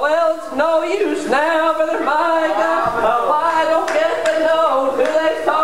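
A man's voice preaching in a loud, sing-song chant, phrases pitched high and partly held like singing, in the chanted cadence of an Appalachian Baptist sermon.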